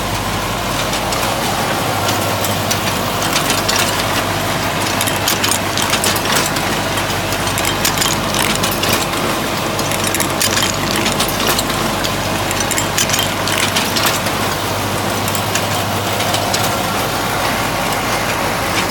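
Wire coat hanger making machine running: a steady electric-motor hum under a dense, irregular metallic clatter of clicks and rattles, thickest through the middle stretch.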